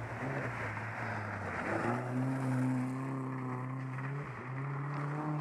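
Rally car engine revving hard as the car approaches on a gravel stage. Its pitch climbs, drops briefly at a gear change about two seconds in, climbs again, and dips once more just after four seconds.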